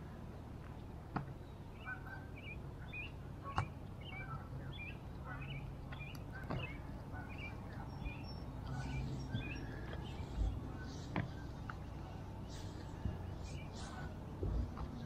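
Small birds chirping, many short repeated calls, over a steady low rumble. A few sharp clicks and scratches of a hand handling the camera, and a couple of low thumps near the end.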